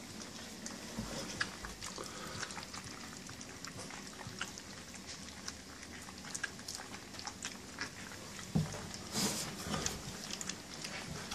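German Shepherd puppies eating dry kibble from a stainless steel pan: many small, quick crunches and clicks, busiest and loudest a little before the end.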